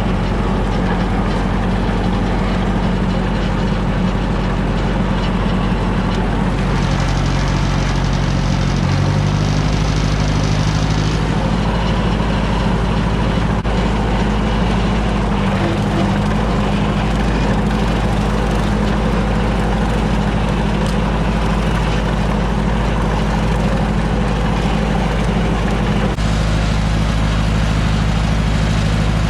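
Ford 860 tractor engine running steadily at raised RPM while driving a bush hog rotary mower, its note shifting in pitch about nine seconds in and again near the end.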